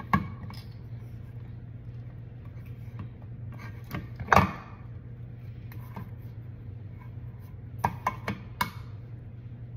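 Handheld manual can opener clicking and clanking against the metal rim of a can as it is clamped on and fumbled with, not yet gripping or cutting. A sharp click comes at the start, a louder clatter about four seconds in, and a quick run of four clicks near the end.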